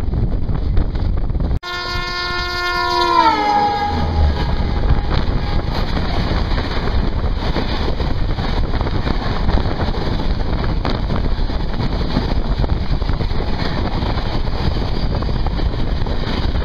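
Rajdhani Express locomotive horn blowing for about two seconds, its chord dropping in pitch as it goes by, then the steady rush and clatter of the express's coaches passing close alongside. Heavy wind noise from riding in a moving train runs under it all.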